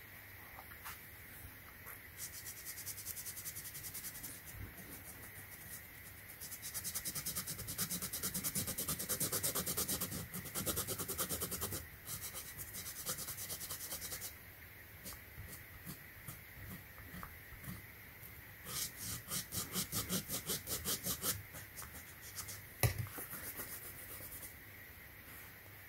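Quick back-and-forth rubbing of a small alcohol-dampened pad over a rubber slide sandal strap, scrubbing off old glue residue. The rubbing comes in spells, loudest around a third of the way in and again about three-quarters through, with a single sharp tap shortly before the end.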